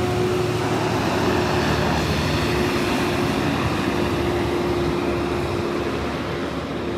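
Loaded logging truck driving past on the highway: diesel engine and tyre noise, with a steady hum under it.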